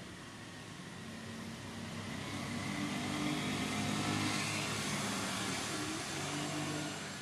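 A motor vehicle's engine passing by, growing louder over the first few seconds, loudest about four seconds in, then slowly fading.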